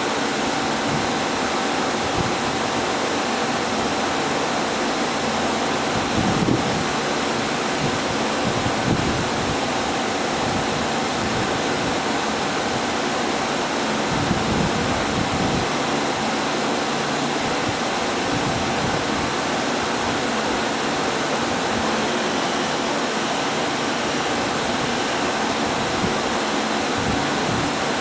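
Milling machine running: a constant hiss with a faint steady whine, and a few brief low rumbles.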